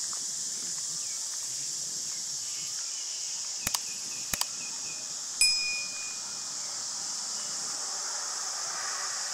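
A single bright metallic chime strikes a little over five seconds in and rings on briefly, preceded by two pairs of sharp clicks, over a steady high hiss.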